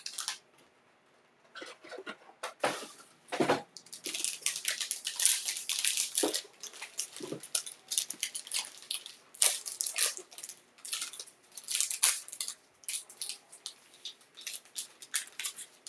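Plastic wrapping crinkling and tearing as a sealed trading-card box is unwrapped and opened, with a few knocks of handled cardboard before the dense crackling begins about four seconds in.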